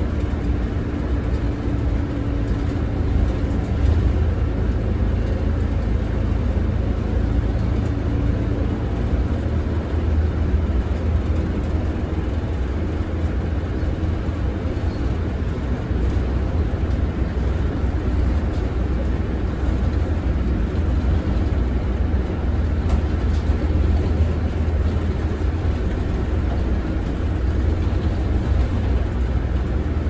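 Inside a route bus on the move: a steady low engine drone mixed with road and tyre noise, without breaks.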